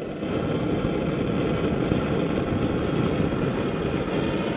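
Gas wok burner running with a steady roar, lit under the oiled wok; the roar steps up about a quarter second in.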